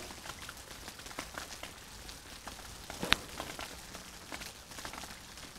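Rain falling, with many scattered drops and drips ticking close by. One sharp click about three seconds in.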